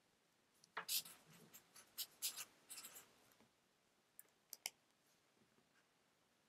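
Faint scratching of a pen on paper in a series of short strokes, followed by a few light clicks.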